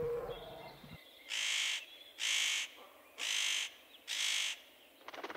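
A crow-family bird calling four harsh caws in a row, about one a second.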